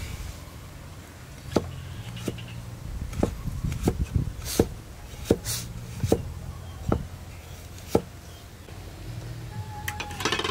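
Meat cleaver chopping on a wooden chopping block, with about nine sharp knocks at an uneven pace of roughly one a second, over soft background music. Near the end a metal ladle clinks against a wok.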